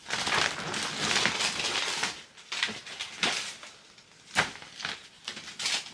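Rustling and crinkling of product packaging and shopping bags being handled: a continuous rustle for about two seconds, then a few separate sharp crackles.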